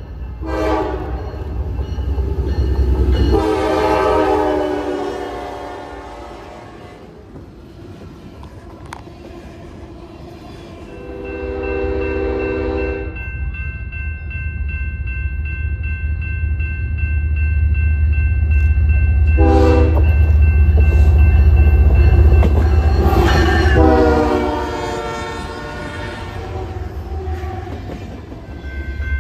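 Diesel freight trains sounding their air horns in several blasts as they approach, with a deep engine rumble that builds as the train comes close and passes, and freight cars rolling by on the rails near the end.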